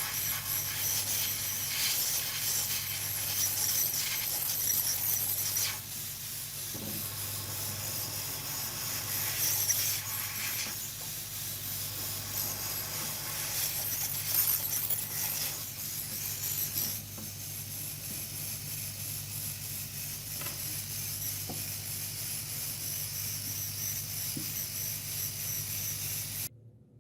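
A steady hiss that swells and fades over a low electrical hum, cutting off suddenly near the end.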